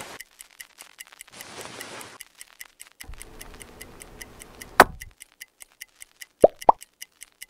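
A mechanical alarm clock ticking steadily, about four ticks a second, with stretches of rustling handling noise. A sharp knock about five seconds in is the loudest sound, and two short pops rising in pitch follow near the end.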